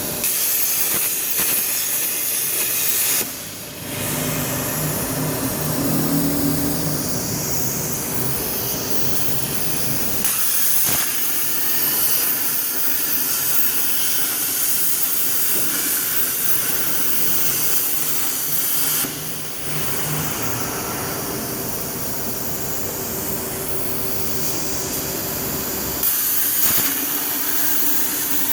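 CNC plasma torch cutting 4 mm steel plate: a loud, steady hiss of the plasma arc and its air, dropping briefly twice.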